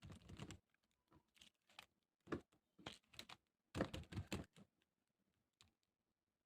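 Light clicking and rustling from handling a sticker book and its pages, in four short bursts over the first four and a half seconds, then near quiet.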